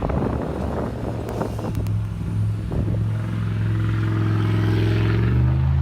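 A motor vehicle's engine running at a steady speed, growing a little louder and smoother from about two seconds in.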